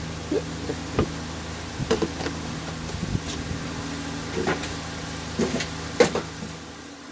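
Scattered knocks and clicks as a fuel funnel in a chainsaw's tank filler is handled, over a steady low hum.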